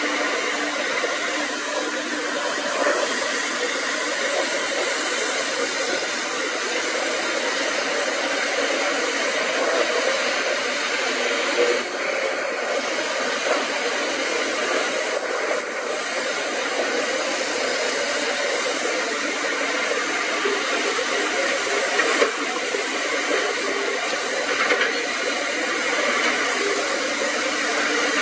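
Diesel engines and hydraulics of several Caterpillar tracked excavators (a 320CL and a 320B among them) working under load: a steady mechanical drone with a few short knocks from tracks and buckets.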